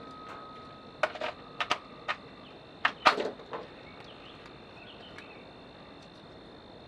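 Several short, sharp clicks and knocks, bunched between about one and three and a half seconds in, then quiet background.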